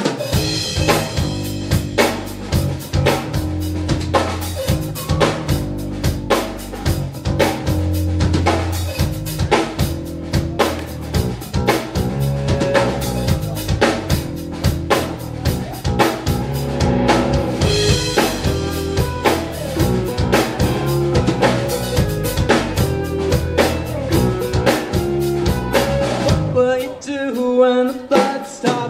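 Rock band playing live, an instrumental passage with a drum kit keeping a steady beat under electric guitar and keys. Near the end the drums and low end drop out for a couple of seconds, then the band comes back in.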